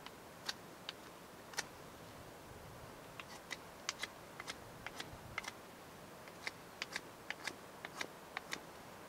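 Knife whittling a wooden stick, each short cutting stroke through the wood giving a small sharp click. The clicks come irregularly, sometimes two or three in quick succession, and grow busier a few seconds in.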